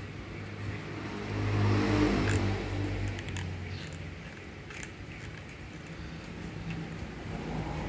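A few sharp plastic clicks as a black plastic tripod phone clamp is handled, over a low engine-like hum that swells about two seconds in.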